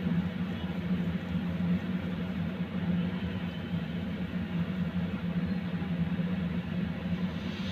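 A steady low machine hum.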